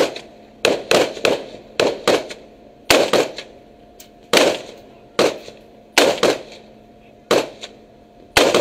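Rifle gunfire from a ship's deck: about fifteen single shots at uneven intervals, some in quick pairs or threes, with a faint steady hum underneath.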